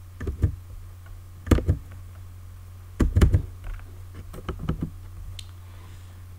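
Clicks and taps from a computer keyboard and mouse in four small clusters about a second and a half apart, over a steady low hum.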